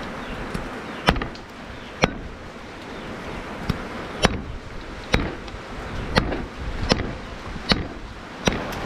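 Knife chopping meat, mincing it for laab: about nine sharp chops, roughly one a second.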